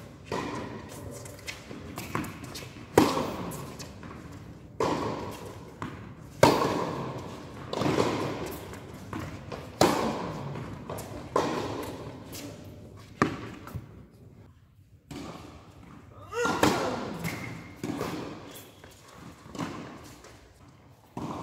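Tennis rally on an indoor court: racket strikes and ball bounces about every second and a half, each hit echoing through the large hall. The hits stop briefly about two-thirds of the way in, then resume.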